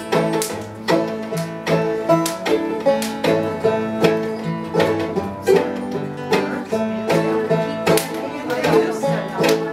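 Small acoustic string band playing a lively tune: fiddle over five-string banjo and acoustic guitar, with a steady plucked and strummed beat.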